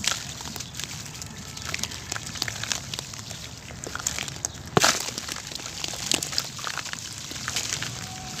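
Sand-cement chunks crumbled by hand: gritty crunching and crackling as the lumps are squeezed apart, with loose sand falling into a plastic bucket. One louder sharp crack about five seconds in.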